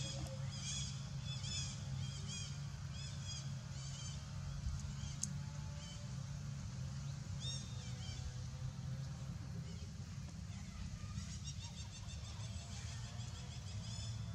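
Repeated short high-pitched animal chirps, about one or two a second at first, sparse in the middle, then a quick run near the end, over a steady low hum.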